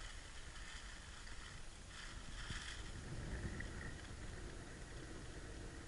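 Faint steady low rumble of wind on the microphone, with a light rustle of the fish bag and scale being handled about two seconds in.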